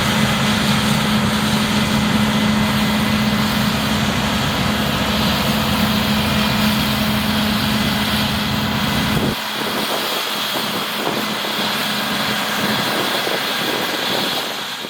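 Claas Lexion 8900 combine harvester running steadily with a deep engine hum over a broad rushing machine noise. About two-thirds of the way through, the low hum drops out abruptly while the higher noise goes on.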